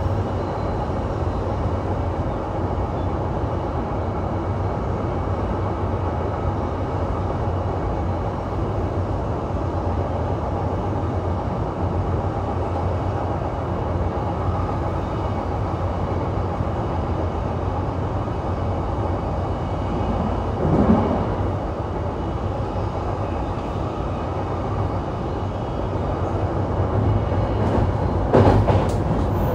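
Interior running noise of a JR East E233-3000 series electric multiple unit, recorded in a motor car with MT75 traction motors and a Hitachi IGBT-VVVF inverter: a steady rumble of wheels on rail with a low hum. There is a brief louder swell about two-thirds of the way through and a few knocks near the end.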